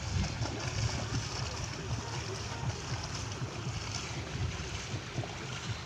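Wind buffeting the phone's microphone: a low, uneven rumble with a faint hiss above it.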